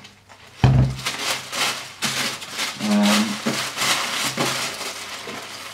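Tissue paper rustling and crinkling inside a cardboard shoebox as hands dig through it. A dull thump comes about half a second in, and a short hummed vocal sound comes near the middle.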